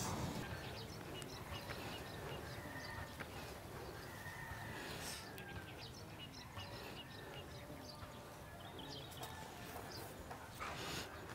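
Faint outdoor ambience with scattered bird chirps, and a short burst of noise near the end.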